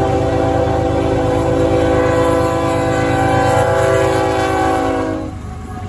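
Diesel locomotive's multi-note air horn sounding one long, loud blast that cuts off about five seconds in, over the low rumble of the train.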